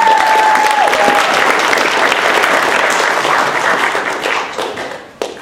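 Audience applause that fades out near the end, with one held call over it in the first second and a single sharp tap just before the end.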